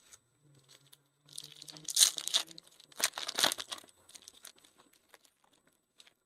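A foil trading-card pack being torn open and its wrapper crinkled, in two bursts about a second apart, followed by lighter rustling.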